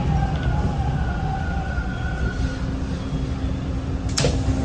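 Toronto subway T-1 train braking to a stop, heard from inside the car: a low rumble with the whine of its GTO-VVVF traction motor drive fading out as it slows, then a steady low hum. A single sharp click about four seconds in.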